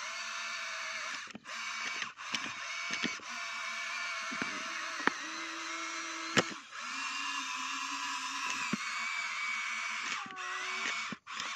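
Huina radio-controlled toy excavator's electric motors whirring as its arm and tracks move, cutting out briefly a few times. Two sharp clicks come around the middle.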